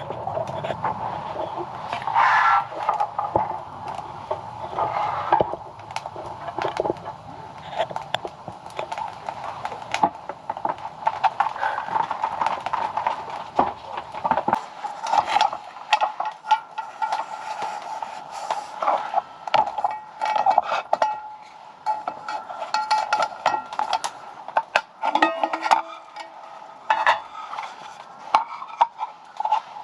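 Repeated light clicks and clatters of dishes and utensils being handled, over a steady tone. A low rumble underneath drops out about halfway through.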